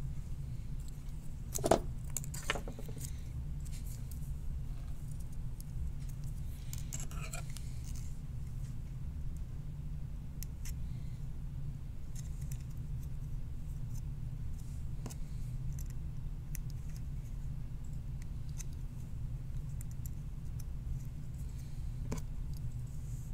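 Small clicks and rustles of resistor wire leads being pulled from their paper tape, pushed through a circuit board and bent back, with the sharpest click about two seconds in and a few faint ones later. A steady low hum runs underneath.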